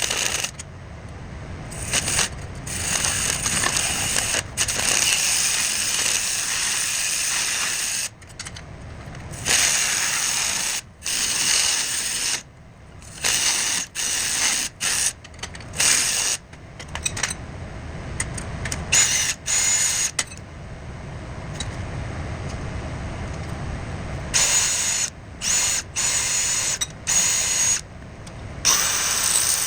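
Metalworking tool noise in short stop-start bursts with a rasping, ratchet-like quality, many times over.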